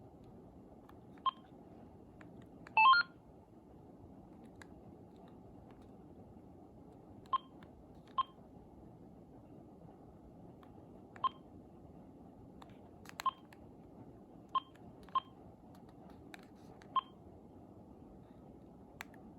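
Cordless phone handset key beeps: about nine short beeps at irregular intervals as its buttons are pressed. About three seconds in there is one louder, longer tone of several pitches. A faint steady hiss runs underneath.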